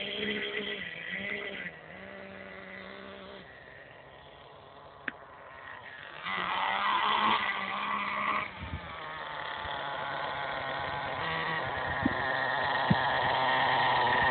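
HPI Bullet 3.0 nitro monster truck's .18-size nitro engine running as the truck drives: a burst of revs about six to eight seconds in, then a buzz that gets steadily louder to the end. A few sharp clicks come through along the way.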